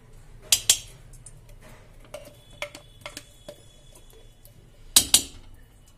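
A metal spoon scooping ghee from its jar and clinking against the jar and the metal kadai. The clinks come as a series of sharp, ringing clicks, with a loud double clink about half a second in and another near the end.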